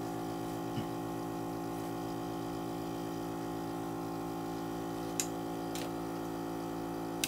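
Small airbrush compressor motor running with a steady, even hum that cuts off abruptly near the end.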